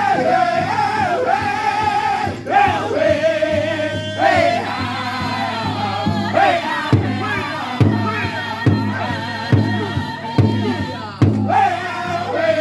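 Powwow drum group: male voices singing a high-pitched song together over a big shared drum. In the second half, loud drum strikes land about once a second.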